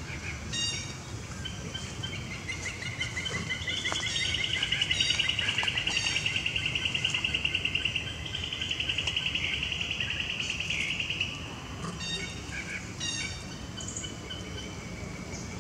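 Forest ambience: wild birds calling with short, sharp chirps now and then, and a long, fast-pulsing trill that starts about two seconds in and runs for roughly nine seconds before fading. A low steady rumble sits underneath.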